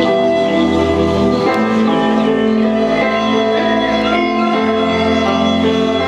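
Instrumental new-age style music: layered, sustained notes with a slow melody moving over them, and no drum beat.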